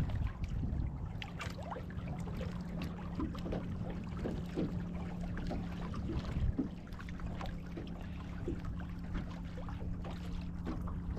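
Water lapping and splashing against a boat hull in small irregular slaps, over a steady low hum that comes in about a second in.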